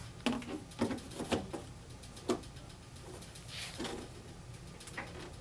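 Scattered light clicks and knocks from a magnetic grille being fitted and turned on an in-ceiling speaker's bracket, over a steady low hum. The clicks bunch together in the first second and a half, then come only now and then.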